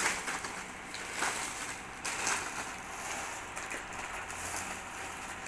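Plastic bag and foil candy wrappers rustling and crinkling as handfuls of candy packets are pulled out and tipped onto a pile, with many small sharp crackles.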